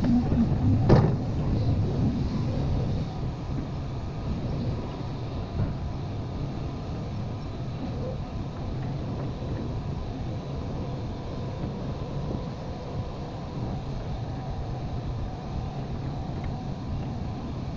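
Cat hydraulic excavator's diesel engine running steadily under load while it works the bucket along an earth slope. There is a single sharp knock about a second in.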